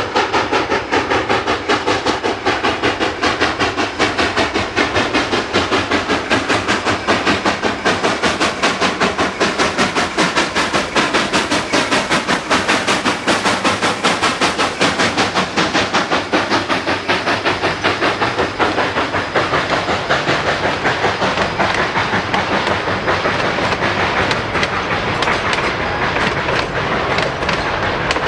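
Narrow-gauge Denver & Rio Grande Western K-36 2-8-2 steam locomotive No. 488 chuffing rhythmically, about three to four exhaust beats a second, as it approaches and passes. Over the last several seconds the beats give way to a steadier rumble and clickety-clack as the passenger coaches roll by.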